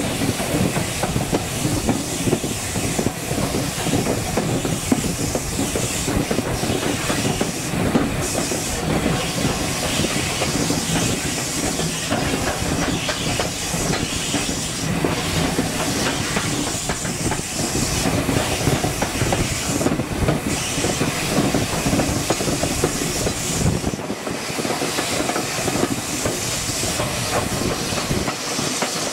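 Steam-hauled train on the move, with wheels clattering on the rails over a steady hiss of steam. The deep rumble falls away about four-fifths of the way through.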